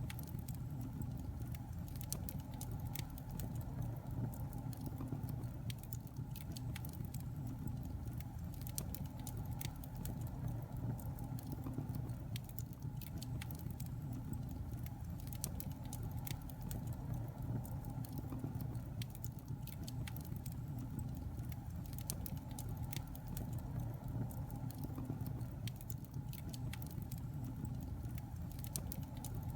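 Fire burning in a fireplace: a steady low sound of the flames with frequent, irregular sharp crackles and pops.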